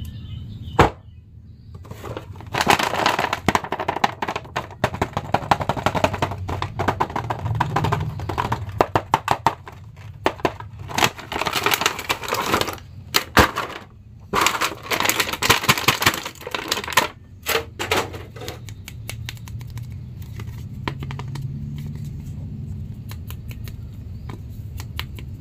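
Plastic blister tray and cardboard toy box crinkling and crackling as they are opened by hand, with many quick clicks and rustles. The noise thins out to quieter handling for the last several seconds.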